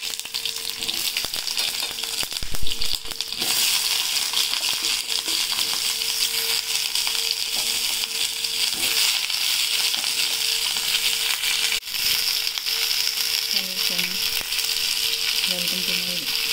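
Small eggplant pieces sizzling and crackling as they fry in hot oil in a kadai, with one louder knock about two and a half seconds in.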